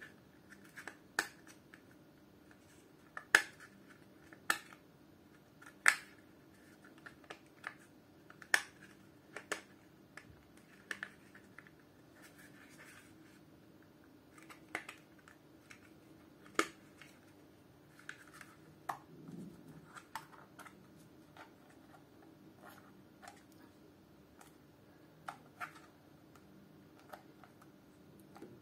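Snap lids of a small plastic compartment organizer box clicking open and shut: a string of sharp, irregular clicks, a few much louder than the rest.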